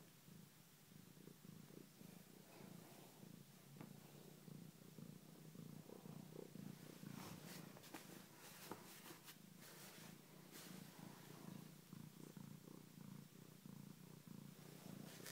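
Domestic cat purring faintly and steadily, close to the microphone. Brief rustling of bedding breaks in between about seven and eleven seconds in, as a hand strokes the cat.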